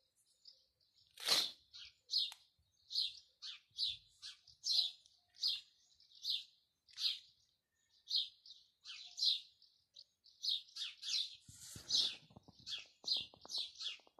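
Small birds in a tree chirping over and over, short high chirps about one and a half a second. One louder, harsher call comes about a second in, and there is a short patch of faint crackling near the end.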